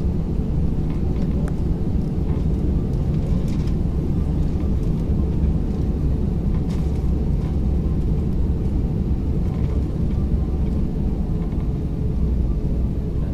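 Airbus A320's jet engines at takeoff power, heard inside the cabin, with a steady low rumble from the wheels rolling on the runway.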